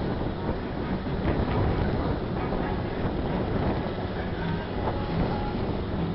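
Steady low rumbling noise of wind buffeting the microphone and sea surf, with a few faint short high calls over it.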